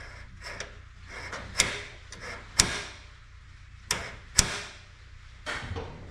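Four sharp clunks with smaller clicks between them from a first-gen Dodge truck's new hood release cable and latch being worked from inside the cab, testing whether the latch releases.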